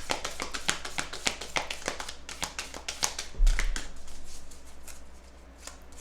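Oracle or tarot cards being handled and shuffled by hand: a quick run of light clicks, then a dull thump about three and a half seconds in, after which the clicking thins out and goes quieter.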